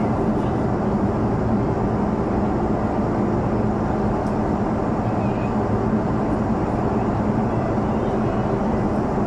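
Airliner cabin noise in flight at cruise: a steady rush of airflow and engine noise with a low hum underneath.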